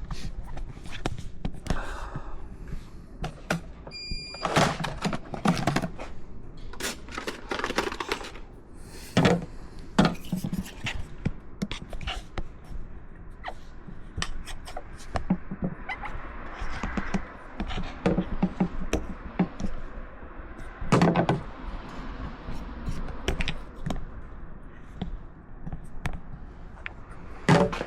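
Metal and plastic camera-mount clamp parts being handled and fitted onto a motorcycle: irregular knocks, clicks and thunks. A short high electronic beep sounds about four seconds in.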